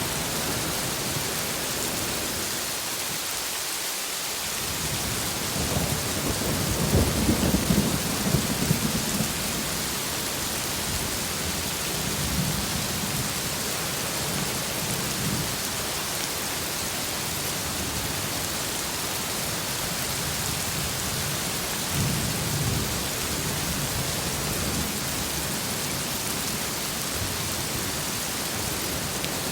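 Heavy rain falling steadily in a thunderstorm, with thunder rumbling loudest a few seconds in and once more, more briefly, past the middle.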